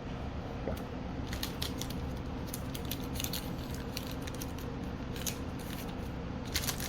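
Pokémon trading cards being handled and put away: scattered light clicks and scrapes of card stock, over a steady low hum.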